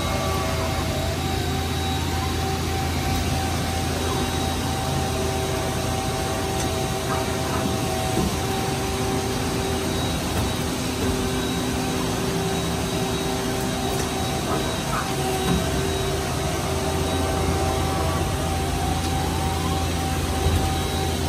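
2007 Mazak Quick Turn Nexus 350-II CNC lathe running with its spindle and chuck turning: a steady machine hum with several constant whining tones and a few brief glides in pitch.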